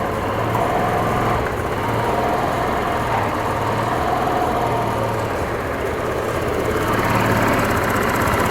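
Rusi RFI 175 scooter's single-cylinder engine running steadily, on a test run to check that the newly fitted injector joint, replacing a cracked one, no longer leaks fuel.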